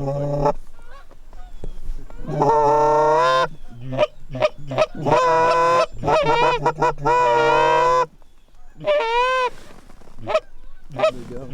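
Geese honking loud and close. Long drawn honks about two seconds in and again through the middle, with short clucks between them, then shorter wavering honks near the end.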